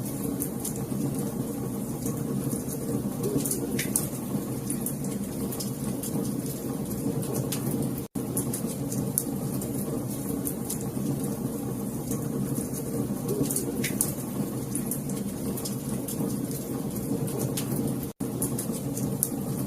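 Wood fire crackling, with irregular sharp pops and snaps over a steady low rumble of burning. The sound cuts out for an instant twice, about 8 and 18 seconds in.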